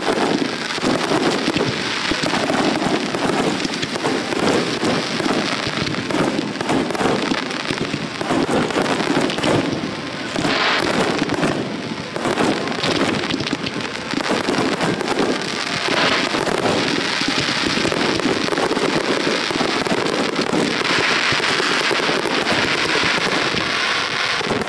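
Fireworks display: a dense, unbroken barrage of aerial shell bursts, bangs and crackling.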